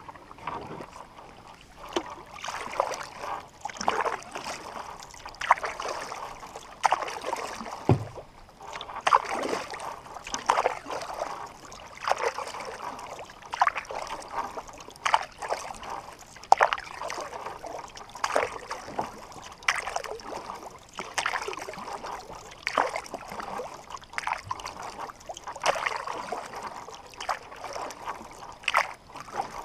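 Canoe paddle strokes in calm water: a splash and a trickle of drips from the paddle about every second and a half, with a single low knock about eight seconds in.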